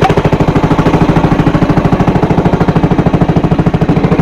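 Small pull-start boat engine running with a loud, rapid, even chugging beat.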